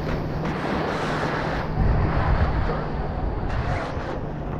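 Waves washing on a beach with wind buffeting the microphone, over a steady low hum that sounds like a motor.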